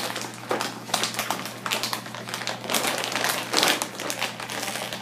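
Irregular rustling and crinkling handling noise with scattered light taps, over a steady low hum.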